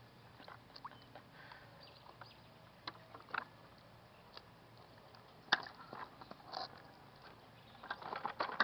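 Faint scattered clicks and knocks of a child's plastic tricycle being moved and handled on wet concrete. The sharpest knock comes about five and a half seconds in, and a few closer together come near the end.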